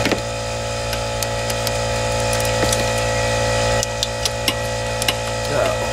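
Scattered light metallic clicks and taps of a socket and swivel working on coil-pack bolts in a truck's engine bay, over a steady mechanical hum.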